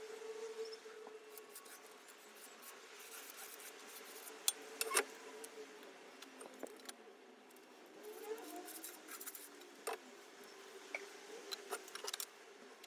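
Pencil and straightedge being worked over plywood while marking out lines: light scratching with scattered taps and clicks, the sharpest about 4.5 to 5 seconds in and again near 10 seconds.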